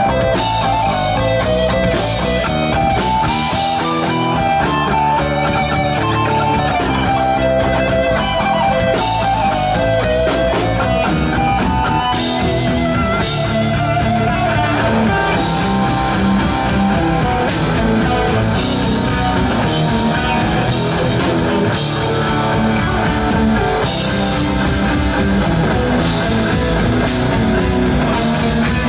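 Heavy metal band playing live: electric guitars over a drum kit, with a guitar melody line on top and no singing.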